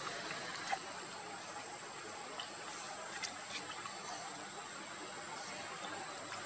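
Faint lapping and small splashes of water stirred by a baby monkey swimming with its mouth at the surface, with a few soft clicks and a faint steady high-pitched whine.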